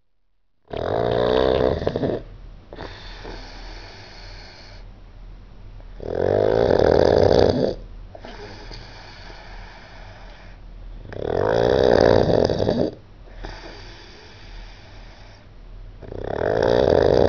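Loud snoring: four long snores about five seconds apart, each lasting a second or more, with quieter breathing in between.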